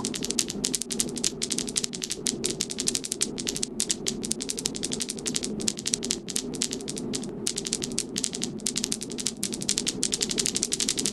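Many marbles rolling and clattering down a marble run track: a dense stream of rapid clicks over a steady rolling rumble.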